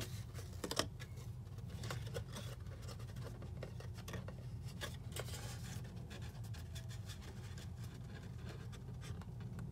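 Thick white cardstock rustling and scraping under the fingers as a box's flaps are folded and tucked in edge to edge, with a sharper tap just under a second in. A steady low hum runs underneath.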